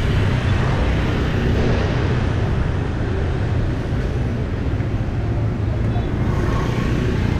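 Busy street ambience: a steady wash of road traffic with engine rumble from passing vehicles.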